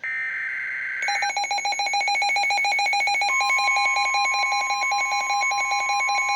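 Emergency Alert System SAME header data burst on NOAA Weather Radio, cutting off about a second in, followed by a weather radio alert alarm: a rapidly pulsing electronic tone, joined about three seconds in by a steady tone.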